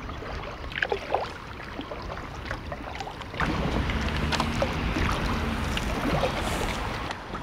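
Kayak out on a river: water moving around the hull, with low wind rumble on the microphone that grows louder about three and a half seconds in.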